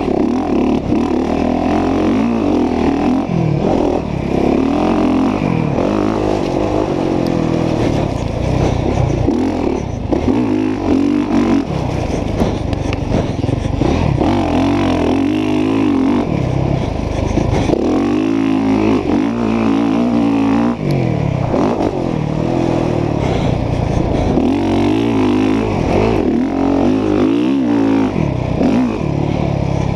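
Dirt bike engine heard from on board, revving up and down over and over as the rider accelerates out of corners, shifts and rolls off around a motocross track.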